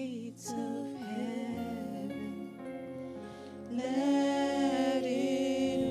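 Slow worship music: a held instrumental backing with a voice singing long, wavering notes, swelling louder about four seconds in.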